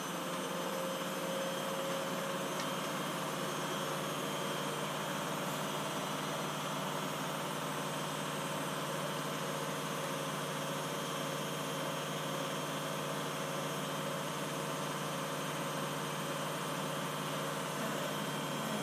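Steady mechanical hum with an even hiss over it, unchanging, with no distinct knocks or clicks.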